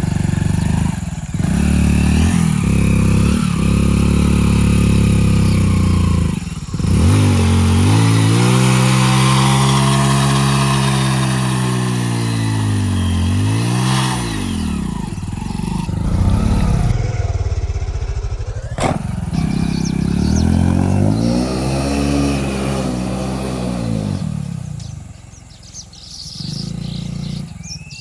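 Hero Splendor motorcycle's small single-cylinder four-stroke engine revving up and down as it is ridden off-road, its pitch rising and falling in long swells. It drops quieter near the end.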